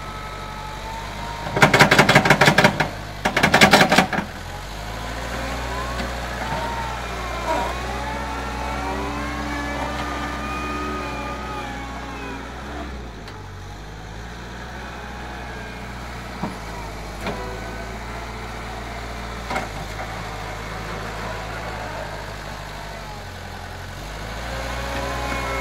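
Schaeff wheel loader's diesel engine running as it pushes and levels soil, its pitch shifting with the load, and growing louder near the end as the machine comes close. Two loud bursts of rapid clattering come about two and three and a half seconds in.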